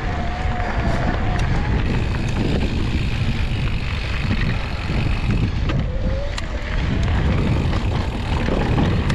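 Mountain bike riding over a dirt trail: wind buffeting the microphone and tyres rumbling over dirt and small rocks, with a few sharp clicks and rattles from the bike.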